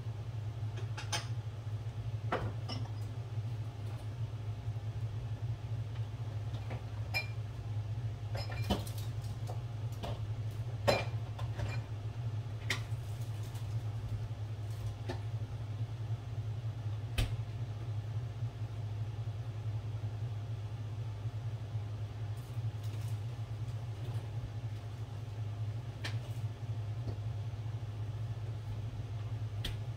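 Scattered clicks and knocks of food containers and jars being moved about in an open refrigerator, one sharper knock about 17 seconds in, over a steady low hum.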